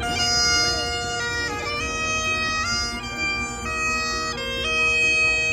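Bagpipes playing: a steady drone under a chanter melody that steps from note to note.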